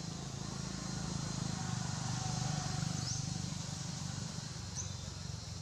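Outdoor ambience: a steady high insect drone and a low hum, with a few short rising bird chirps, about three seconds in and near the end.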